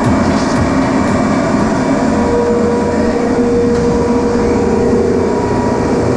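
Loud, steady machinery noise with a constant hum and no breaks.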